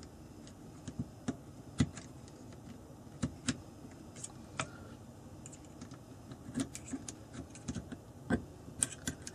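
Irregular small metallic clicks and taps as a small pin is worked in the adjuster of a metal adjustable air rifle butt plate, turning it clockwise to tighten it. The louder clicks come about two seconds in and again near the end.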